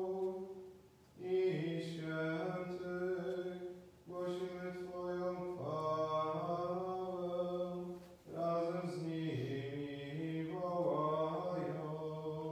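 A man's voice chanting a Mass text in Polish, mostly on one held reciting pitch, in three phrases with short pauses between them.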